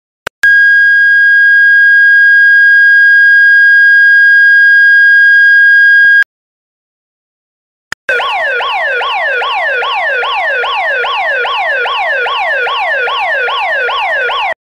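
Tone samples from an electronic 12 V horn siren (DNI3330). First comes a steady, continuous high tone for about six seconds, cut off abruptly. After a short gap comes a rapid repeating tone that falls in pitch, about three sweeps a second.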